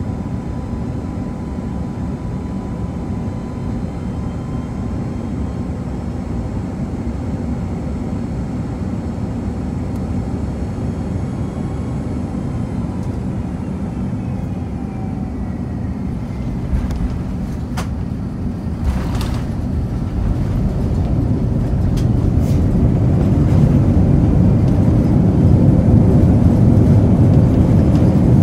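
Airbus A330-200 cabin noise during landing, heard from a seat over the wing: steady engine and airflow rumble with a faint falling engine whine, a knock a little past halfway as the wheels touch down, then the rumble grows louder through the last third as reverse thrust and braking come on during the rollout.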